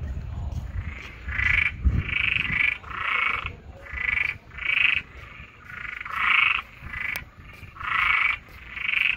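A chorus of many frogs croaking: about ten calls of roughly half a second each, following one another about once a second, some overlapping.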